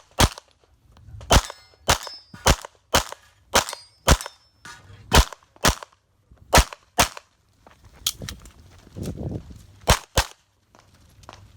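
A string of rapid 9mm pistol shots, about a dozen, many fired in quick pairs with short gaps between groups, as in an IPSC practical-shooting course of fire. A faint ringing follows some shots, typical of hits on steel targets.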